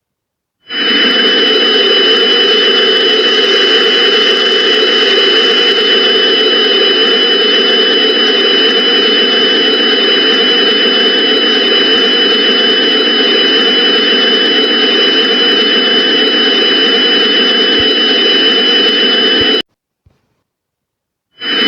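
A loud, steady rushing noise with two high, steady whistling tones through it, a background noise loop of the kind laid under emergency-alert (EAS) videos. It fades in under a second in, runs unchanged for about nineteen seconds, cuts off abruptly, and starts again after a short gap.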